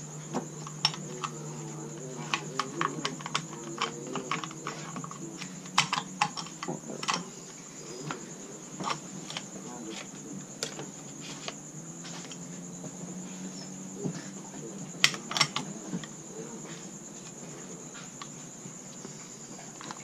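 Irregular metallic clicks and knocks of SKS rifle parts being handled and fitted together during reassembly, with a steady high-pitched whine underneath.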